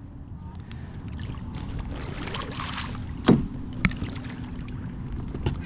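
Lake water lapping against the hull of a Lifetime Teton Angler 100 kayak. Two sharp knocks come a little past the middle, about half a second apart.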